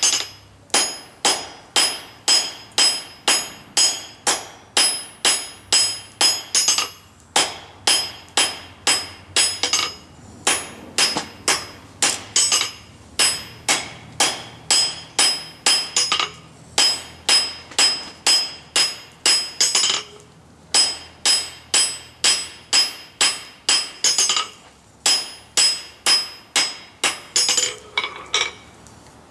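Hand hammer striking red-hot coil-spring steel on an anvil, drawing out a square awl. The blows come about two to three a second in runs of several, with short pauses between runs, and each blow rings off the anvil. The last few blows near the end are lighter.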